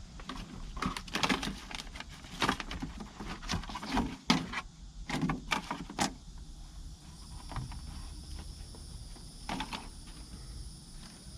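Objects being handled and rummaged through: a quick run of irregular clicks, knocks and rustles for about six seconds, then quieter, with a faint steady high-pitched tone and an occasional knock.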